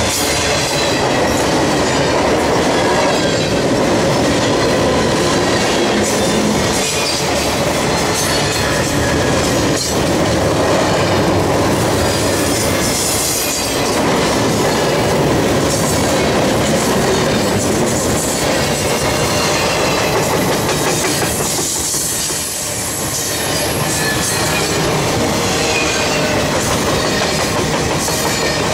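Canadian Pacific Expressway train's trailer-carrying flatcars rolling past at close range: a loud, steady rolling noise of steel wheels on rail, with occasional clacks and faint high squealing tones.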